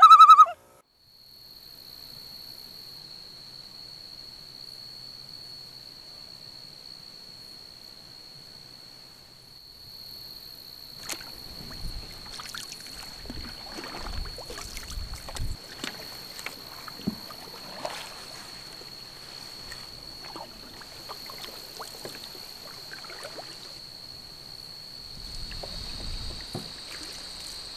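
Canoe paddling on calm water: irregular paddle strokes with water splashing and dripping and light knocks on the hull, starting about a third of the way in. A steady high-pitched whine runs underneath, and a music sting ends in the first half second.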